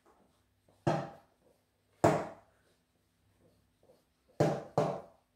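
Moulting comb raked through a cat's very dense coat in four short scraping strokes, each starting sharply and tapering off, the last two close together.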